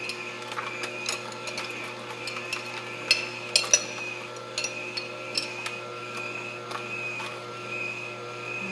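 Hurom slow juicer running: a steady motor hum while the auger crushes soaked almonds with water, giving irregular cracking clicks, a few sharper ones about three to four seconds in.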